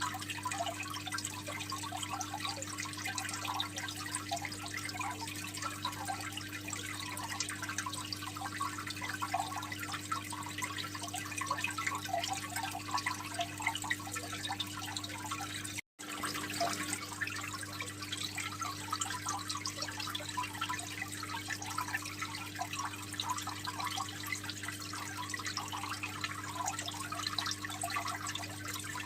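Aquarium water trickling and splashing continuously, with lots of small drips and bubbles, over a steady low hum. The sound drops out for an instant about sixteen seconds in.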